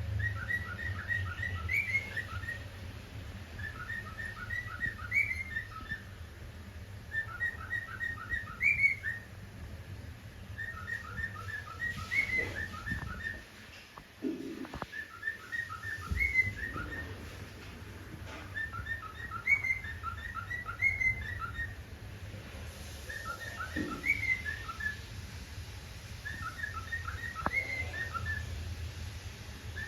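Cockatiel whistling the same short tune over and over, a quick run of notes ending on a higher one, repeated about every three and a half seconds over a steady low hum.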